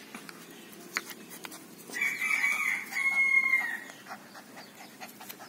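A rooster crowing once, a held call of nearly two seconds starting about two seconds in, with a few faint clicks around it.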